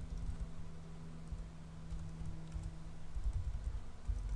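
Typing on a computer keyboard: a run of light key clicks over a low steady hum.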